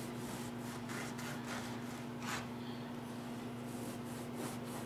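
Knife sawing through a crusty loaf of bread on a wooden cutting board: faint, irregular rasping strokes over a steady low hum.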